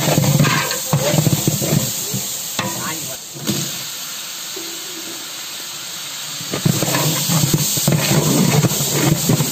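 Masala in a large metal cooking pot over a wood fire hissing and sizzling as water is poured in, with a long ladle stirring. The sound grows rougher and louder about two-thirds of the way through.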